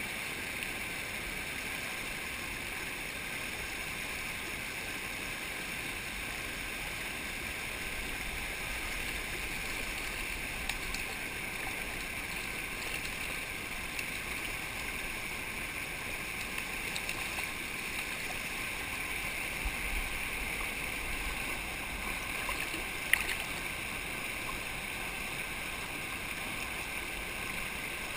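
Creek water rushing steadily, with a single sharp click about two-thirds of the way through.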